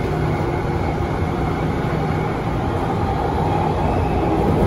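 Inside an MTR A-train electric multiple unit running at speed in a tunnel: a steady rumble with a low steady hum over it.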